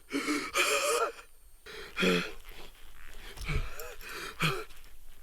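A person gasping and wheezing: a run of loud, breathy gasps with some voice in them, spaced about a second apart.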